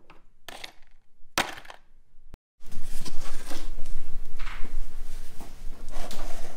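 Small metal parts such as washers and clips clinking into a plastic bowl, about three sharp clinks in the first two and a half seconds. After a brief cut, a loud continuous rustling and scraping follows as a plastic jug is handled over the bowl.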